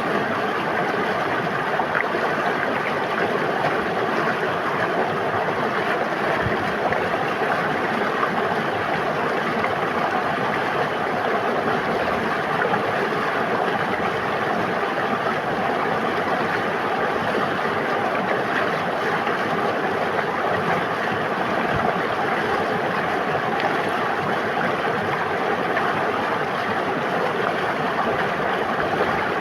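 River water flowing: a steady, unbroken rush of moving water.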